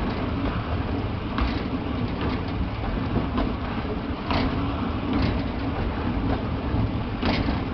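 Steam-hauled mixed goods train running along the track, heard from one of its wagons: a steady rumble of wheels on rails with a few sharp clanks at uneven intervals.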